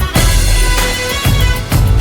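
Background music: a pop song with a steady drum beat, instrumental here with no singing.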